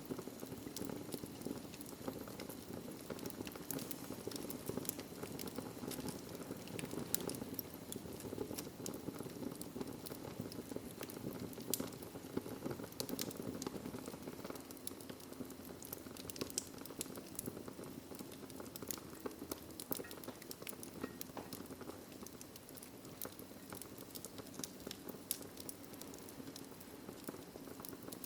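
Wood fire in a fireplace crackling, with irregular sharp pops and snaps over a steady low rush of the flames. Now and then a louder pop.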